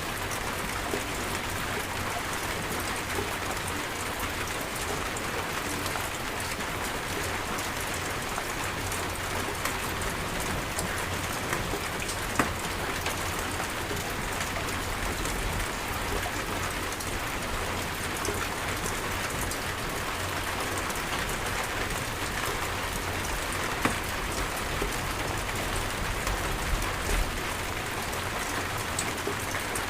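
Rainstorm: steady, dense rain falling, with a few sharper drop hits standing out now and then.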